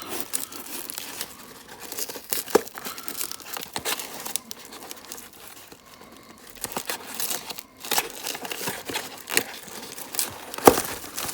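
Parcel packaging being torn and crumpled by hand while it is opened: irregular crinkling and rustling with tearing, and a sharper snap near the end. The parcel is packed solidly and hard to get into.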